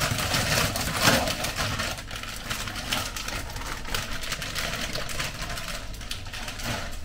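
Plastic tortilla package crinkling and rustling as it is opened and handled, a dense crackle loudest in the first second or so, over a steady low hum.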